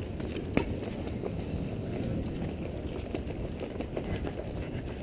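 Running footsteps on pavement, with low wind and jostling rumble on a body-worn camera's microphone. A sharper knock comes about half a second in.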